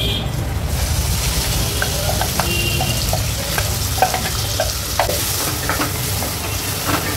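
Chopped onion dropping into hot oil and ghee in a kadai and sizzling, the hiss swelling about a second in. Taps and scrapes of a wooden spatula stir it, over a steady low hum.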